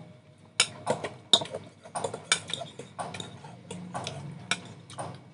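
Forks and spoons clinking against bowls while eating noodles: irregular sharp clinks, a few a second, starting about half a second in.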